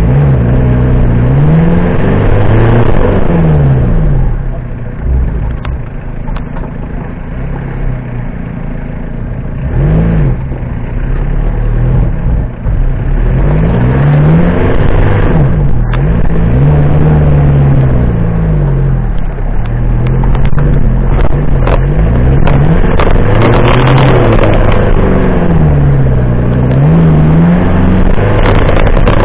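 Off-road car's engine heard from on board, revving up and dropping back again and again as the car accelerates and slows along a rough dirt track. A few short knocks and rattles come in the second half.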